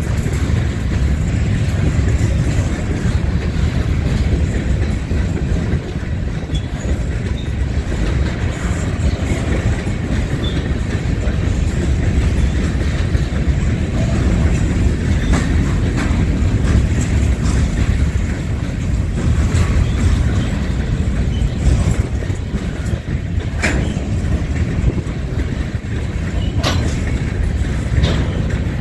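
Freight train of covered hopper cars rolling past at close range: a steady low rumble of steel wheels on rail with the clickety-clack of wheels over rail joints, and a couple of sharp clanks near the end.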